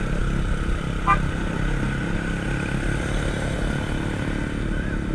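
A vehicle engine running steadily on the move, a low, even rumble.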